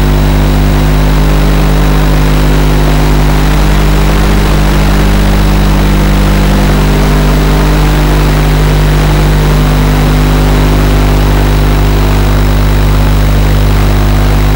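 Quadcopter's electric motors and propellers running steadily in flight, heard through the camera on board as a loud, even hum.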